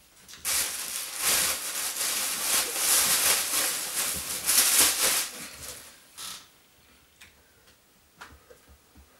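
Loud rustling of clothes being handled and sorted, lasting about five seconds, then a few soft clicks and taps.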